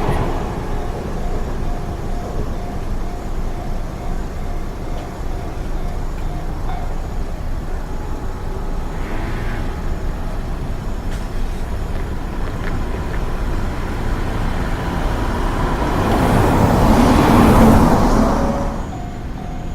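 Railroad crossing warning bell ringing at about two strokes a second, stopping about seven seconds in; steady road traffic noise follows, with a vehicle passing loudly near the end, and the crossing bell starts ringing again just before the end.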